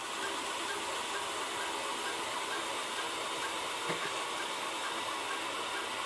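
3D printer running a print: a steady whirring hiss from the print head's fans and motors, with one faint tick about four seconds in.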